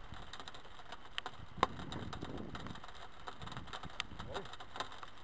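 Homemade cord sling being swung and let go, with a sharp snap about one and a half seconds in and a few lighter clicks later.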